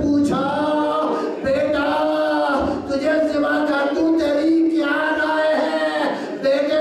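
A man's solo voice chanting the adhan (Islamic call to prayer) unaccompanied into a microphone, in several long, wavering held phrases, each a second or two long.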